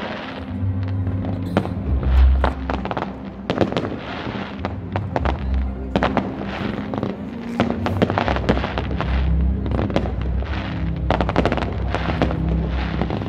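Fireworks display going off: a rapid run of bangs and crackles, with a louder low boom about two seconds in. Music with a low bass line plays underneath.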